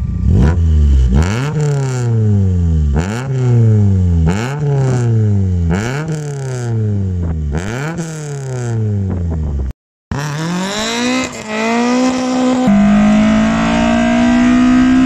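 Toyota 20-valve silver-top four-cylinder with individual throttle bodies and intake trumpets, revved hard about six times, each rev snapping up and falling back. After a short break the car accelerates, with the pitch climbing steadily, dropping at a gear change, then climbing again.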